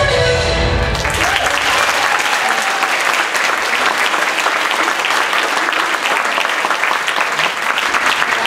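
Recorded dance music ends about a second in, and an audience applauds steadily through the rest.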